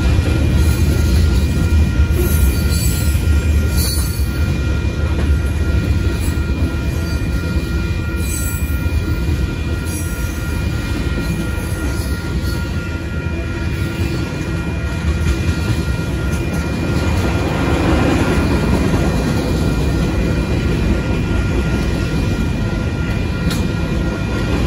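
Freight train cars rolling past at track level: a loud, continuous rumble of steel wheels on rail, with a few short clicks. A steady high squeal of wheels runs over it.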